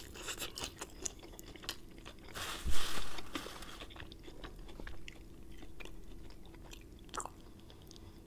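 Close-miked chewing of crispy fried chicken: moist chewing mixed with small crackles from the breading, with a louder bout about two and a half seconds in.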